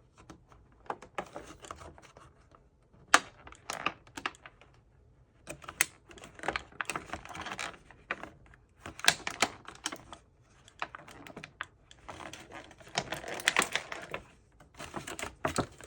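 Plastic toy packaging crackling and clicking in irregular bursts as it is pulled and pried at by hand, and it is not giving way.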